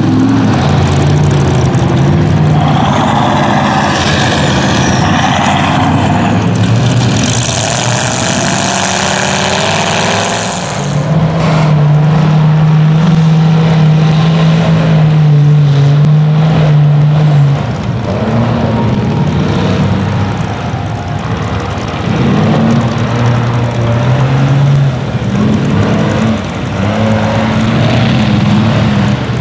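Lifted mud truck's diesel engine revving hard as the truck drives through deep mud, its note stepping up and down with the throttle and held loud and steady for several seconds about halfway through.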